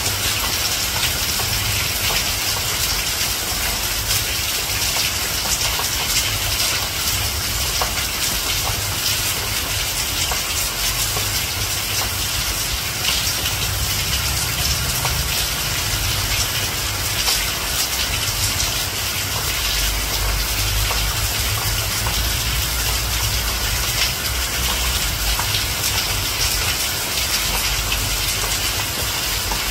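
Steady, fairly loud rain pouring down without a break.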